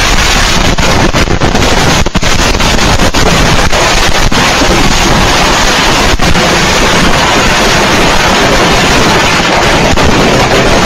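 A firework exploding at ground level right beside a home security camera: a very loud, unbroken barrage of bangs and crackling, heard through the camera's microphone, that cuts off suddenly at the end.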